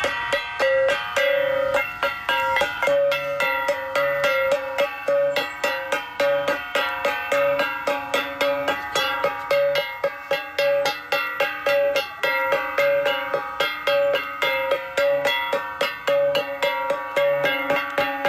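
Gangsa, the flat bronze gongs of the Cordillera, struck in a fast, steady, repeating rhythm, their ringing metallic tones layered over one another with a lower beat recurring underneath. This is the gong playing that Igorot beggars use to draw alms.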